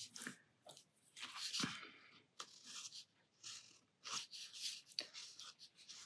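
Tombow Fudenosuke hard-tip brush pen drawing on watercolour paper: faint, irregular scratchy pen strokes with short pauses between them, and a soft bump about a second and a half in.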